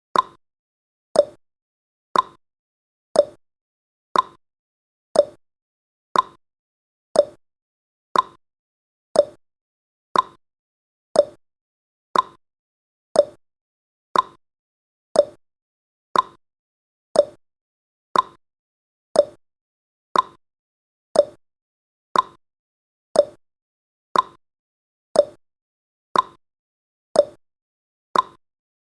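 Countdown timer sound effect: a short, sharp click once every second, evenly spaced, each dying away quickly.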